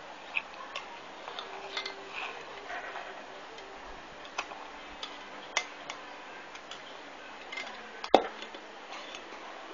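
A stainless-steel ladle clinking against a metal bowl as soup is eaten from it, in scattered light clicks, with one sharp clink about eight seconds in.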